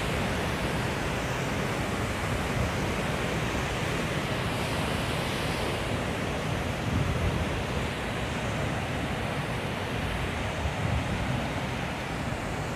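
Steady rush of turbulent water in a dam boil, where water released through the dam's gates churns below the wall, with wind buffeting the microphone.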